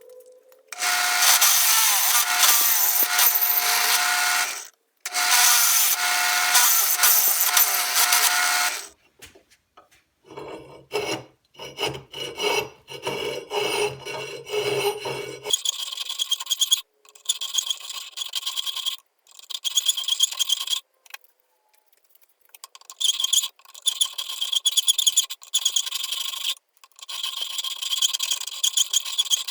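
A power tool runs in two steady bursts of about four seconds each. It is followed by many rhythmic back-and-forth strokes of a hand tool rasping on steel, in several runs with short pauses between them, as the opening in a steel angle bracket is worked.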